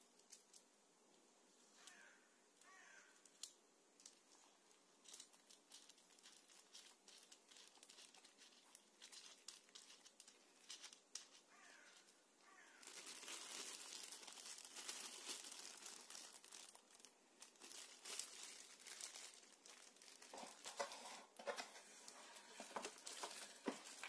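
Clear plastic packaging bag crinkling and rustling in the hand, with scattered light clicks; the rustling becomes denser and louder about halfway through.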